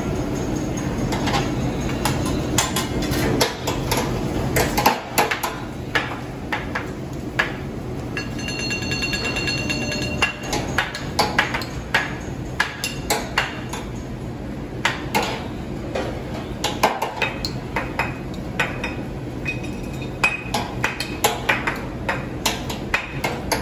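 A metal spatula and fork clinking, tapping and scraping on a flat steel teppanyaki griddle as fried rice is worked, with many quick sharp taps. A ringing metallic ping sounds for about two seconds near the middle.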